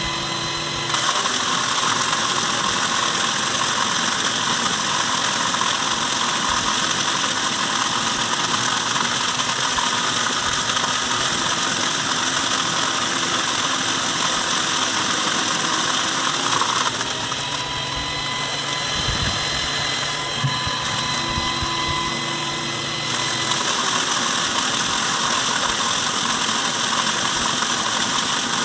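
Electric wood chipper running steadily with its motor whine, as whole corn kernels are fed through and cracked with a dense, hissing rattle. The rattle eases off for a few seconds past the middle, then picks up again.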